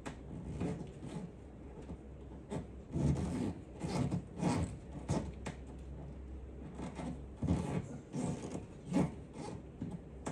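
Irregular rubbing and scraping with light knocks, from screws and a console plate being worked by hand, the louder scrapes coming in a cluster through the middle.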